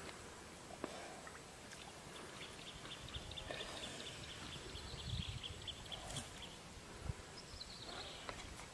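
Quiet outdoor ambience with a small animal's fast, high-pitched ticking trill, lasting about two seconds a third of the way in and returning, slightly falling, near the end. A few low rumbles come in between.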